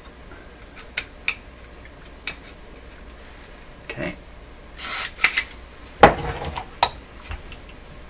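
A short hiss from an aerosol can of switch cleaner, among small metallic clicks and clinks from handling the radio's push-button switch bank, with a heavier knock about six seconds in.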